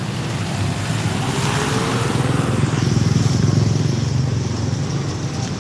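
A motor vehicle's engine running as it passes close by on a street, swelling to its loudest about three seconds in.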